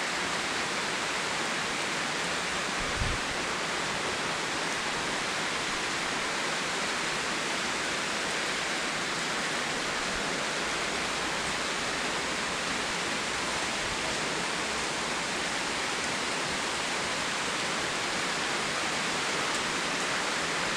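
Heavy tropical rain pouring down, a steady dense hiss that does not let up. One soft low thump about three seconds in.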